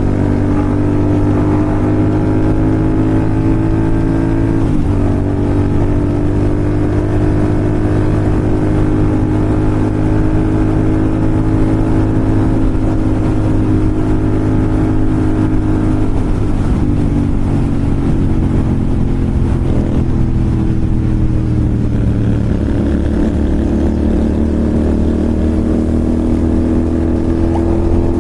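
Royal Enfield Continental GT 650's 648 cc parallel-twin engine through an SS Moto slip-on exhaust, running steadily at cruising speed. Its pitch shifts a few times with throttle changes.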